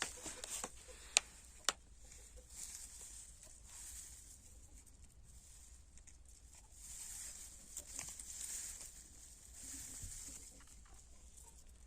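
Hens moving about: soft scratching and rustling with scattered light taps, and two sharp clicks about a second in.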